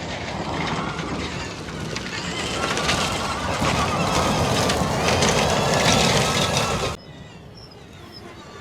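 Extreme E ODYSSEY 21 electric off-road SUV driving, its electric drive whining over a rushing noise that grows louder; the sound cuts off abruptly about seven seconds in.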